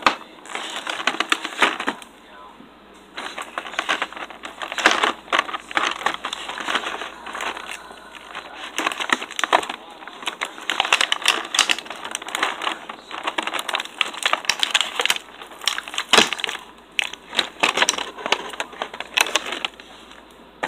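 Clear plastic blister packaging crinkling and crackling as it is handled and pulled open by hand, with irregular crunches and crackles.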